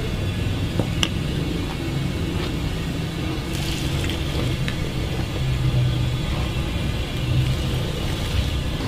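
Hot broth poured from a ladle through a metal strainer into a steaming pot, splashing, over a steady low rumble, with a single light click about a second in.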